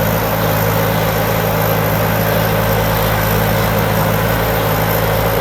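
Thai Seng Super Jiw combine harvester, a 165-horsepower four-cylinder turbo machine, running steadily while it works through a rice field. The engine gives a constant, even drone.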